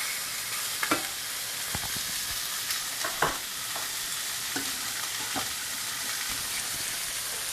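Sous vide steaks sizzling steadily in a smoking-hot frying pan as they are seared for colour, with a few sharp knocks about one, two and three seconds in.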